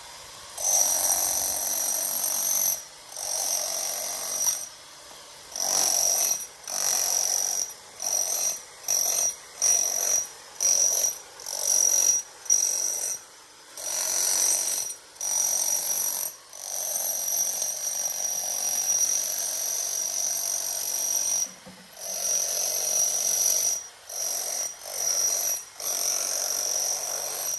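Bosch handheld electric jackhammer chipping plaster off a pool's surface, run in repeated bursts from under a second to several seconds long, stopping and starting many times, with a high whine while it runs.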